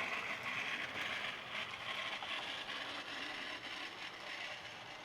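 HO-scale Bachmann Spectrum model diesel locomotive running on its track: a steady whir of the motor and gears, slowly growing fainter.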